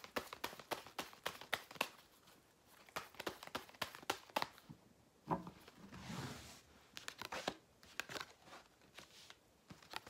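Tarot cards being shuffled and laid out by hand: runs of quick flicks and snaps, with a short swishing slide of cards about six seconds in.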